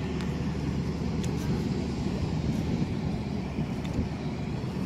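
Steady low rumble of outdoor background noise on an airport apron.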